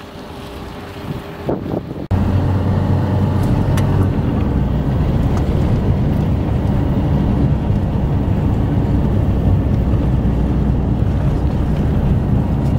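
Light wind on the microphone. About two seconds in it cuts abruptly to a car driving: steady engine and road noise with a low rumble.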